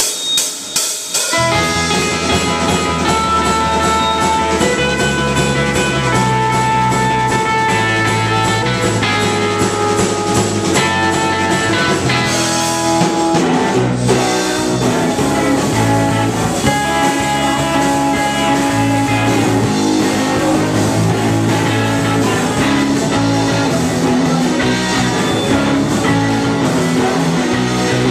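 Live rock band with electric guitar, bass guitar and drums starting a song: a few drum hits, then the full band comes in about a second and a half in and plays on steadily. The vocals are lost in the mix under the loud instruments.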